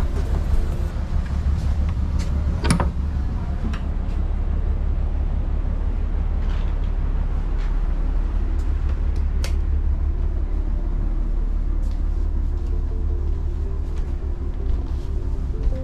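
Steady low drone of a houseboat's engine running, heard on board, with a few scattered sharp clicks.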